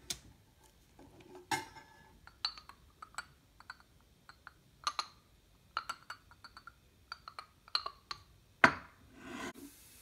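Small porcelain espresso cup being handled: a run of light clinks and taps of china, with a louder knock near the end.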